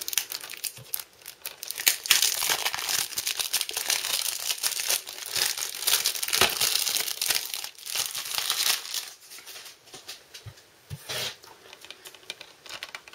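Cellophane shrink-wrap being torn and peeled off a plastic Blu-ray case by hand: a dense crinkling and crackling that thins to a few scattered crackles in the last few seconds.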